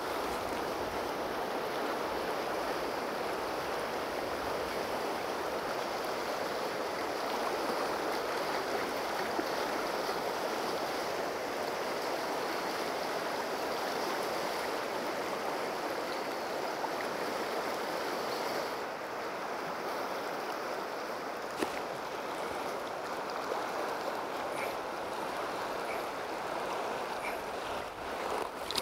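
Steady rush of a fast river's white-water rapids, its tone shifting slightly about two-thirds of the way through.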